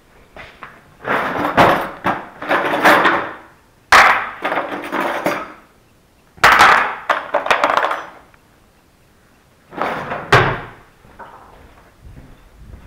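Wooden cutting board knocked about on a kitchen table, and a cutlery drawer rummaged with knives and utensils clattering: several loud bursts of knocks and rattles, each starting with a sharp knock.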